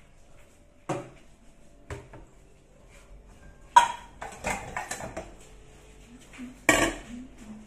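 Dishes clattering in a stainless steel kitchen sink: a couple of light knocks, then a loud clatter about four seconds in followed by a run of smaller ones, and another loud knock near the end.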